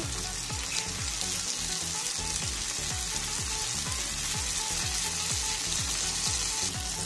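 Okra sabzi sizzling in a steel kadai on the stove, a steady frying hiss, over a low, regular pulsing at about three to four beats a second.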